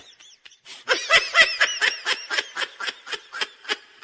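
A person laughing in a long run of quick, even 'ha' pulses, about six a second, starting about a second in and fading away near the end.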